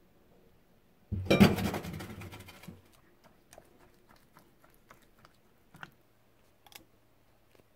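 A loud burst of clattering and rustling about a second in, then scattered light clicks and taps of a spoon against a ceramic mixing bowl of grated lotus root batter.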